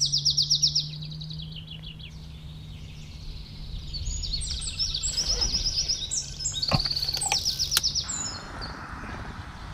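Small songbirds singing in several bursts of rapid, high trills, with a steady low hum underneath that stops about eight seconds in.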